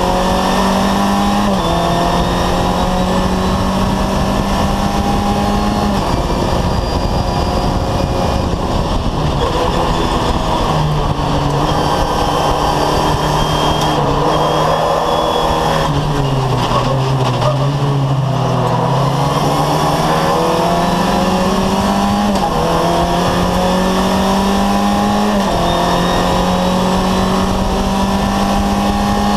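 VW Fun Cup race car's engine heard from inside the cockpit. It pulls hard with an upshift a second or so in, eases to a lower, unsteady note in the middle, then accelerates again with two more upshifts in the last few seconds. Road and wind noise runs under it.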